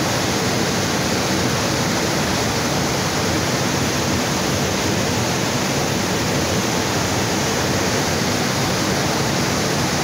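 Upper Düden Waterfall pouring into its plunge pool: a loud, steady, even rush of falling water.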